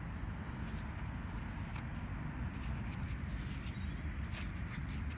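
Low, steady rumble of wind on the microphone, with a few faint clicks from a hand handling a small metal key.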